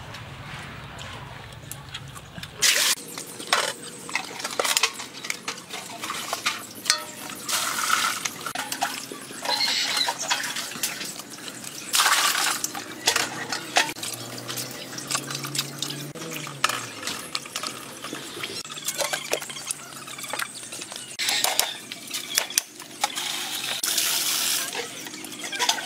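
Water splashing and sloshing in a basin as things are scrubbed and washed by hand, with irregular knocks and clatter against the bowl. A steady low hum fills the first few seconds before the splashing begins.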